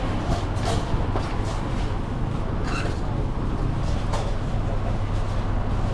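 A steady low rumble with a few light clicks and knocks, and a brief high tone a little before the middle.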